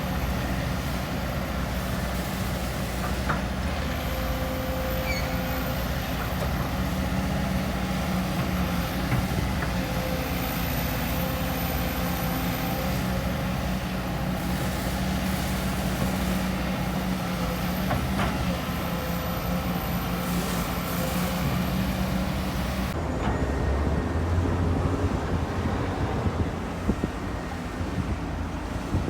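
Bulldozer's diesel engine running steadily, its tone changing abruptly about three-quarters of the way through to a lower, rougher sound.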